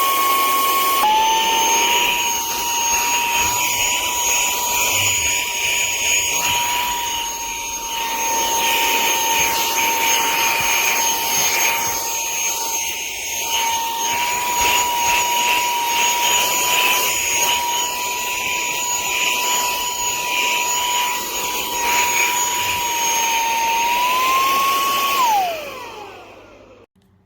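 Cordless handheld vacuum's brushless motor running with a steady high whine, its pitch stepping down slightly about a second in. Near the end the whine rises briefly, then winds down as the vacuum is switched off.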